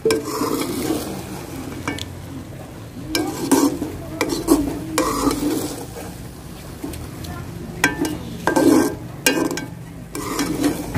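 Slotted metal spoon turning and scraping through cooked rice in a metal cooking pot, in a series of irregular strokes, as the rice is checked for doneness.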